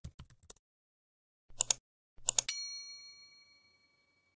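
Sound effects of an intro animation: the last few keyboard-typing clicks, then two short clicks about half a second apart, followed by a bright bell-like ding that rings out and fades away.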